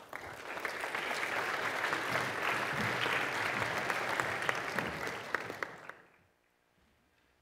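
Audience applauding at the end of a talk, building within the first second, holding steady, then dying away about six seconds in.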